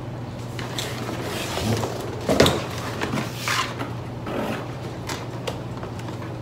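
Cardboard shipping box being handled and opened: a run of short scrapes, rustles and knocks on the cardboard, loudest about two and a half seconds in.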